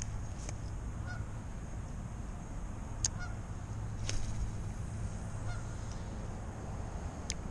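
Geese honking faintly now and then, with three sharp clicks, about three seconds in, a second later, and near the end, over a low steady rumble.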